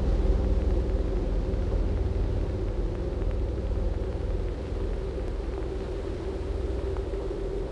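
Steady low ambient drone from an animation soundtrack: a deep rumble with several held tones over it, without a break.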